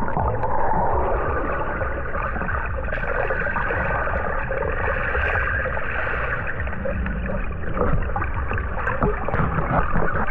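Muffled underwater noise with bubbling and gurgling, heard through a camera submerged in the water.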